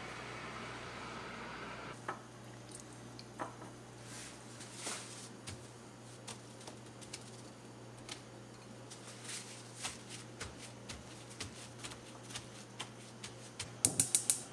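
Soft, scattered pattering taps of raw cut potato sticks dropping onto a paper towel. Near the end comes a quick run of about five sharp clicks from a gas stove's burner igniter as the burner lights.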